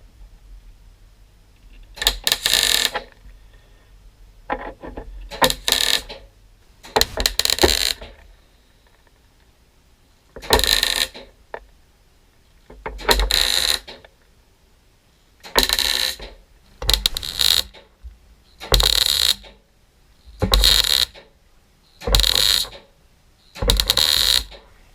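MIG welder laying short tack and stitch welds on a steel door-skin patch, in about a dozen separate bursts each under a second long, with pauses between them.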